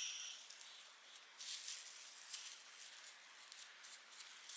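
Faint, intermittent rubbing and scuffing as dark walnut wood stain is wiped onto a scrap piece of wood with gloved hands, testing the colour.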